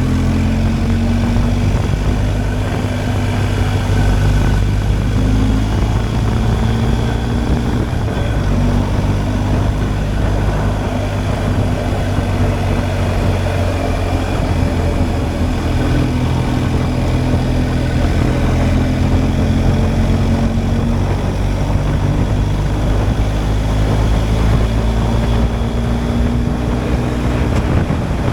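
BMW R 1250 GSA's boxer twin engine running under way at fairly steady revs, its note wavering slightly with the throttle, with wind rushing over the bike.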